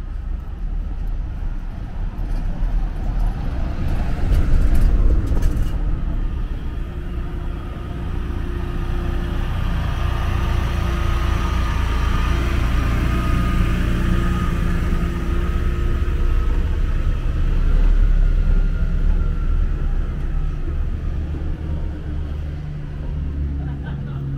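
Road traffic: a car going past, its noise swelling and then fading in the middle, over a steady low rumble.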